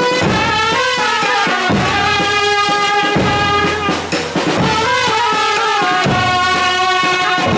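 Music: a held, slowly gliding melody over a slow drum beat, about one stroke every second and a half.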